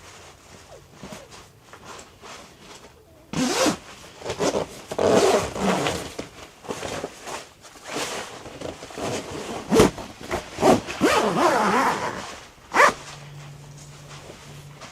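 A zipper being pulled in a series of quick rasping strokes over several seconds. A faint steady low hum follows near the end.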